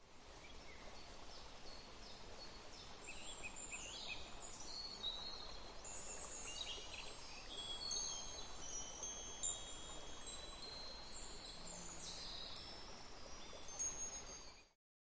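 Wind chimes tinkling: many high ringing notes that strike and hang, thickening after about six seconds, over bird calls and a steady low hiss.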